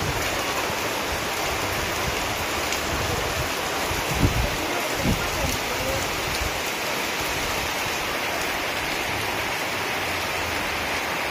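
Very heavy rain pouring steadily onto banana leaves, plants and wet ground, a dense even hiss. A couple of short low thumps break in about four and five seconds in.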